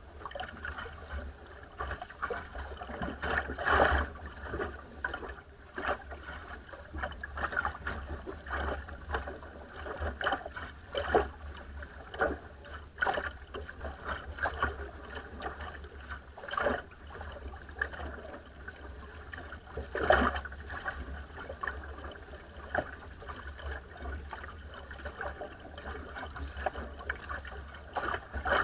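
Water rushing and splashing at the bow of a small wooden sailing dinghy under way in a light chop, with irregular slaps as the hull meets the waves. Wind rumbles on the microphone underneath.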